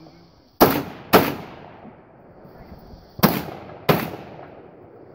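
Four gunshots from a shouldered long gun, fired as two quick pairs about two seconds apart, each shot followed by an echoing tail.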